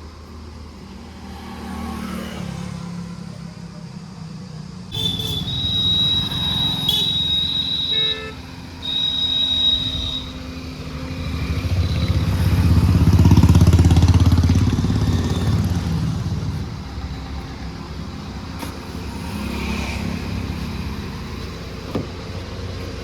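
Maruti Vitara Brezza diesel being driven on a test drive, with the engine and road noise swelling to a peak about halfway through and then easing off. For a few seconds early on a high steady tone sounds over it, stopping and starting. The drive is to bring out a rear-brake 'kach kach' noise the owner hears when braking.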